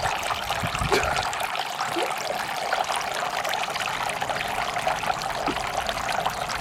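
Water from a small solar-powered garden fountain trickling and splashing steadily into its basin.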